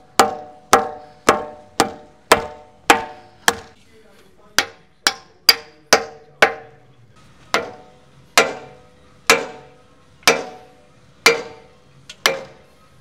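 Hammer striking steel in a series of ringing blows, roughly one to two a second, with a couple of short pauses.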